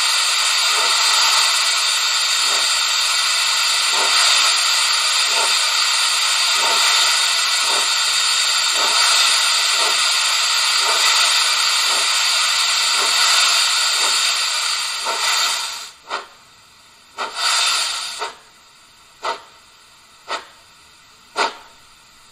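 Steam locomotive sound from the digital sound decoder in a 1:32 Gauge 1 model of a Prussian T3 tank engine, starting off slowly: a steady loud hiss of steam with soft exhaust beats under it. About 15 seconds in the hiss cuts off, leaving slow separate exhaust chuffs, about one a second.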